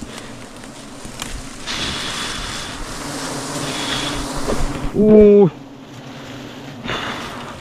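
Swarm of honey bees buzzing steadily around their nest as it is smoked. About five seconds in comes a brief, loud pitched call.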